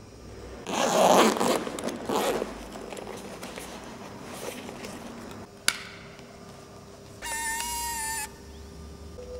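Zipper of a padded camera bag pulled open in two quick strokes, followed a few seconds later by a single sharp click and then an electronic beep lasting about a second.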